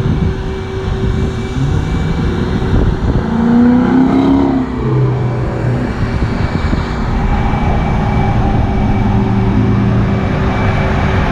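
A Dodge Charger R/T's 5.7 L HEMI V8 passing by at full throttle. It has stock headers with cats and Flowmaster Super 10 mufflers with the resonators deleted. The exhaust note is loudest about four seconds in, then drops in pitch as the car goes by and runs on as a steadier drone.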